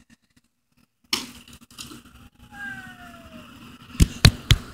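Almost silent at first, then a faint background; about four seconds in, a quick run of sharp knocks and clicks from the recording phone being jostled and handled against its microphone.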